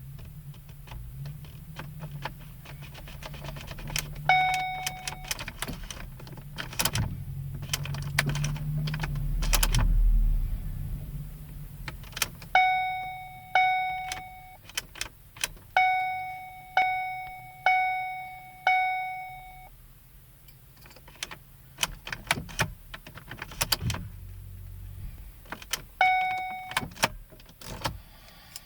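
Car interior warning chime dinging repeatedly, about once a second in a run of seven near the middle, with single chimes before and after, among sharp clicks and knocks and a low hum.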